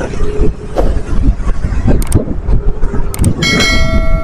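Wind buffeting and road rumble from riding a motorcycle over a rough road, with no one speaking. About three and a half seconds in, a bell-like ringing with several steady tones starts up and holds past the end.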